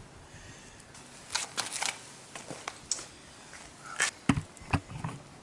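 Light clicks and knocks of the Honda Super Cub 110's removed front wheel and drum-brake parts being handled, ending in two heavier knocks a little after four seconds in.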